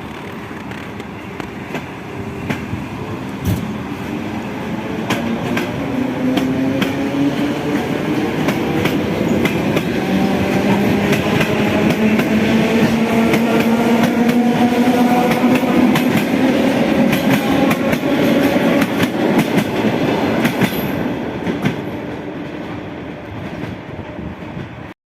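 ET2ML electric multiple unit accelerating: its carriage wheels knock over the rail joints in a clickety-clack, while a motor whine climbs steadily in pitch. The sound grows louder toward the middle and eases off near the end.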